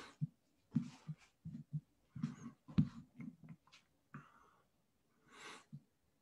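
A person's faint breathing close to a computer microphone, with short scattered low blips and soft hissy breaths; the longest breath comes about five seconds in.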